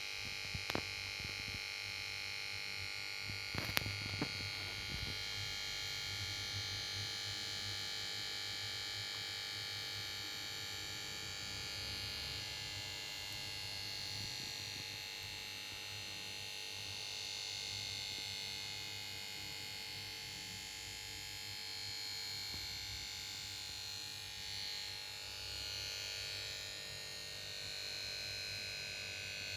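Power board of a Samsung PS42A410C1XBT plasma TV making a steady electrical whine and buzz over a low hum, with a few clicks in the first few seconds. It is the fault noise of a set that fails to start after switching on.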